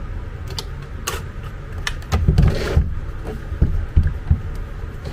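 Clicks, knocks and low thuds of a plastic actuator housing and its cables being handled and shifted on a table, over a steady low hum; the knocks cluster about two seconds in.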